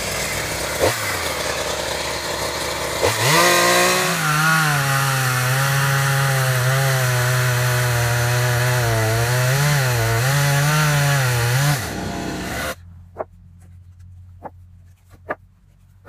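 Two-stroke chainsaw running, revving up about three seconds in and cutting through a thick log, its pitch wavering slightly as the chain bites, then stopping about three-quarters of the way through. Afterwards a few light knocks as sawn log slices are set down on a stack.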